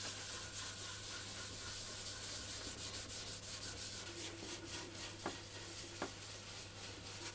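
Wax finish being rubbed by hand into a solid-wood cabinet: a soft, repeated scrubbing of hand or rag on bare wood, over a faint low hum. There are two light knocks a little after halfway.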